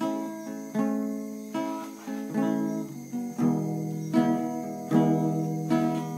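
Guitar strumming chords between sung lines, a new chord struck about every 0.8 seconds and left to ring.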